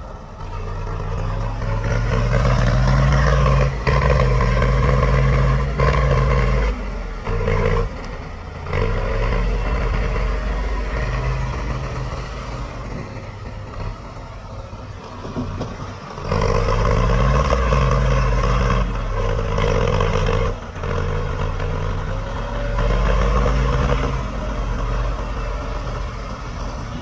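Diesel engine of heavy earthmoving machinery working under load, revving up and easing off several times with its pitch rising and falling.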